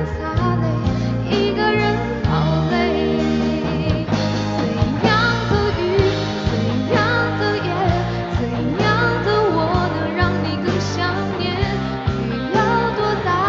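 Mandarin pop ballad played live: steady band accompaniment with a wavering vocal line over it.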